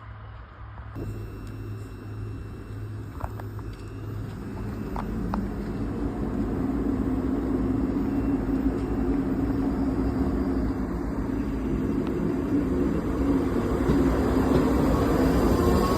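Passenger train approaching on the line, its rumble growing steadily louder, with a rising whine of wheels and motors coming in near the end.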